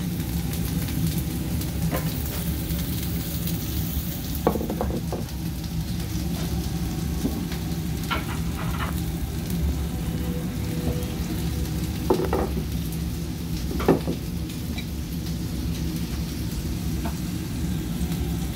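Kobe beef sizzling on a hot steel teppan griddle over a steady low hum, with a few sharp clicks of metal spatulas and knife against the plate.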